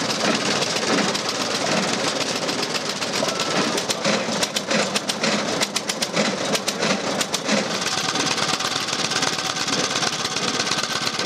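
Veteran pre-1915 motorcycle engines running, with an uneven rapid firing beat of sharp ticks that is most distinct about halfway through.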